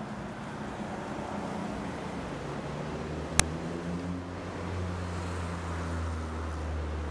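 Street traffic noise, steady throughout. About three seconds in, a nearby vehicle's engine hum comes up and stays, and a single sharp click comes just after.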